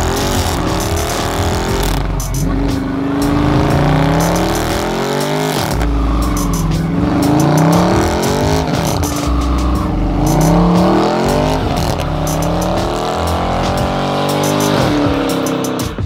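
Dodge Charger 392's 6.4-litre Hemi V8 revved hard through a burnout, its rear tyres spinning on the pavement. The engine's pitch climbs and drops back several times.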